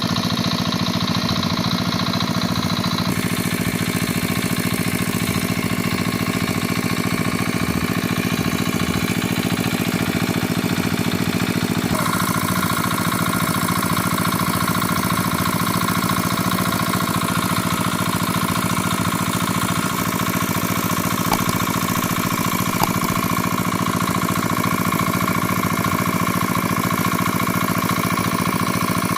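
A small engine running steadily at constant speed, with a higher steady whine joining about twelve seconds in.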